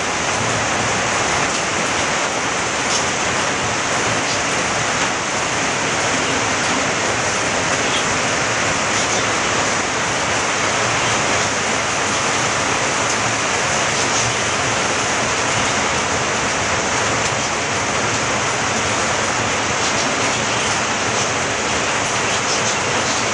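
Heavy tropical rain falling steadily, with streams of runoff pouring off a roof edge and splashing below.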